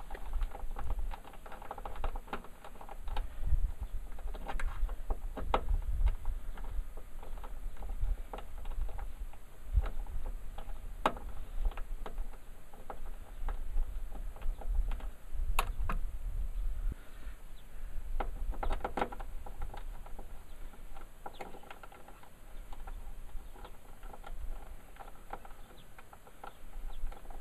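Screwdriver working the T30 Torx screws of a Jeep Wrangler JK half door's strap retainer: scattered small metal clicks and scrapes as the screws are backed out, over a low rumble.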